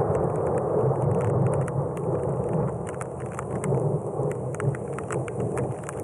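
Thunder from a desert thunderstorm, a long low rumble that slowly dies away. Scattered raindrops tick sharply close by, more of them from about two seconds in.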